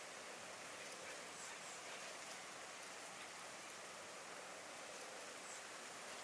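A steady, even hiss of noise, soft and unchanging.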